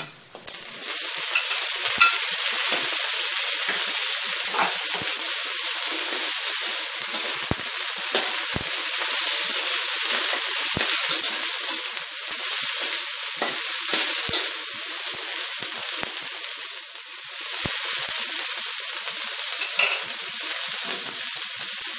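Snow peas sizzling in hot oil in a wok with fried shiitake mushrooms. The sizzle starts as they go in and carries on steadily while a metal spatula stirs, scraping and knocking against the wok now and then.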